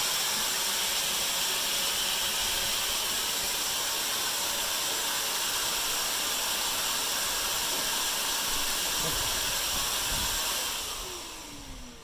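Electric power tool running steadily with a loud, hissing, whirring sound. It is switched off near the end and spins down with a falling pitch.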